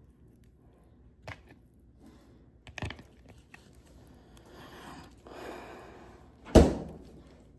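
Kitchen handling sounds: a couple of light knocks, a stretch of rustling and scraping, then a loud thunk near the end.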